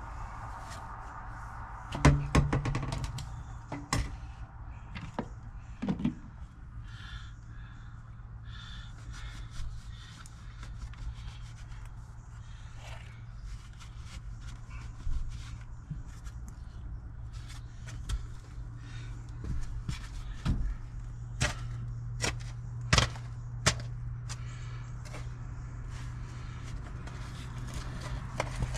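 Scattered knocks, taps and scrapes from hand work, the loudest about two seconds in, over a low steady hum that grows stronger in the last third.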